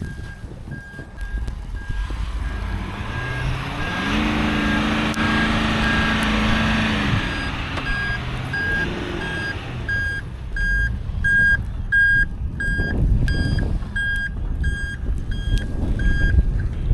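A heavy vehicle's reversing alarm beeping steadily at one pitch, getting louder in the second half. A deeper engine note swells in and falls away a few seconds in, over a low rumble of wind and traffic.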